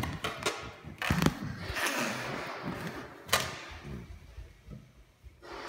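A few scattered knocks and thumps, with a short rustling noise about two seconds in and one sharp loud click a little after three seconds, then quieter.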